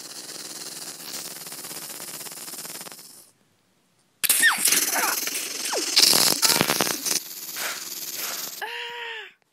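Machine-gun fire sound effect: a long burst starting about four seconds in and lasting about four seconds, after a steady hiss at the start. A short yell near the end.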